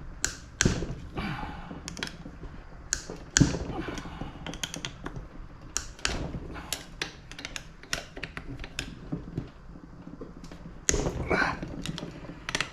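Irregular clicks, taps and clinks of metal parts and tools being handled while a pressure washer motor is taken apart, with a louder clatter about eleven seconds in.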